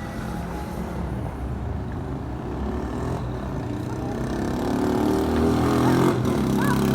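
A motor vehicle's engine running steadily and growing louder toward the end, as if a car or truck is drawing near.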